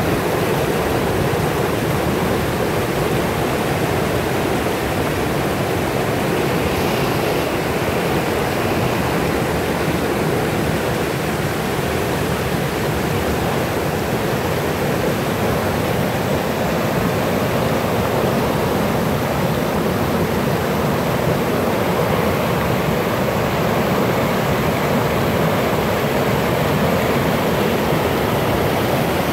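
Mountain river in spate with snowmelt, rushing and churning over boulders in white-water rapids: a loud, steady rush of water.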